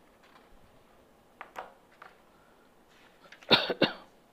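A man coughs, two quick harsh bursts about three and a half seconds in, after a faint short sound in an otherwise quiet small room.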